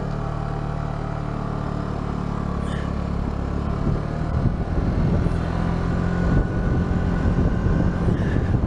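Suzuki Burgman 200 scooter's single-cylinder engine idling, then pulling away about four seconds in, growing louder as it gathers speed with wind rushing over the microphone.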